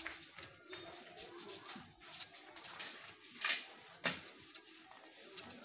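Hands handling a household sewing machine and its thread, giving soft rubbing and light clicks, with two sharper clicks about three and a half and four seconds in.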